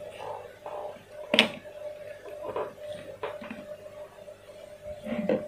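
Hands handling electrical wires and thin plastic air tubing on a rubber work mat: small rustles and scrapes, with one sharp tap about a second and a half in and another knock near the end, over a faint steady hum.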